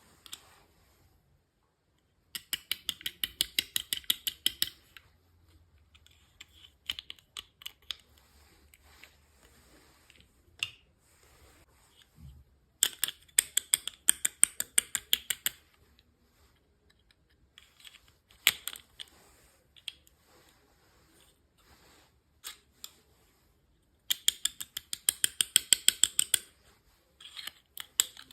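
Crisp rapid clicking in three runs of two to three seconds each, with scattered single clicks between: small plastic packaging being handled and opened.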